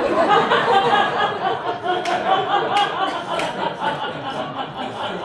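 A small group of people laughing together at the punchline of a joke, several voices overlapping in chuckles and laughter.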